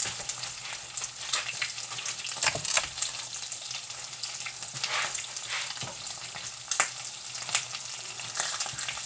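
Corned beef frying in hot olive oil in a pan: a steady sizzle with frequent crackling pops of spitting grease.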